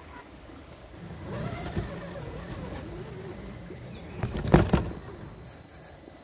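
RC rock crawler's electric motor and drivetrain whirring as it drives over rocks and mud, the pitch rising and falling with the throttle. There are two loud knocks a little past halfway as it bumps over the rocks.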